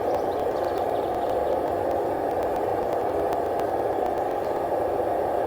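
Homemade propane forge with a forced-air burner running: a loud, steady rush of blower air and burning gas.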